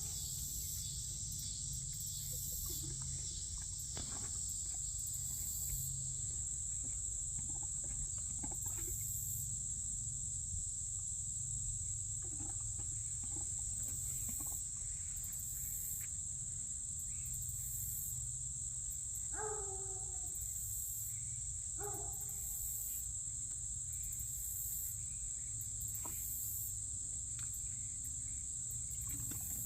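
Steady high-pitched insect drone with a pulsing chirr above it, over a low rumble. There are scattered faint clicks, and two short pitched calls come about two and a half seconds apart past the middle.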